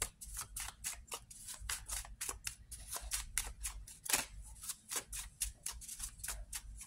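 A deck of cards being shuffled by hand: a quick, irregular run of light snapping clicks, about five a second.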